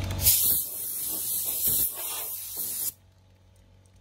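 High-pressure water spray from a pressure washer lance, a loud hiss that starts about a quarter second in, surges a few times, and cuts off suddenly about three seconds in.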